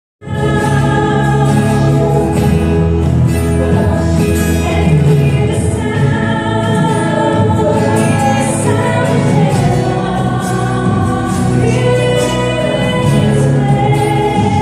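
Praise and worship song: a choir singing with instrumental backing, starting abruptly right at the beginning.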